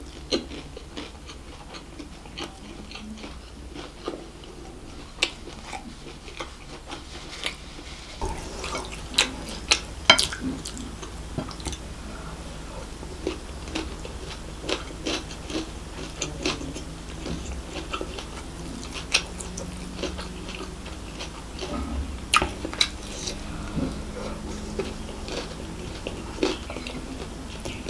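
Close-miked chewing of a mouthful of fried rice, with many small irregular wet clicks and smacks from the mouth. Now and then a wooden spoon scoops rice from the plate.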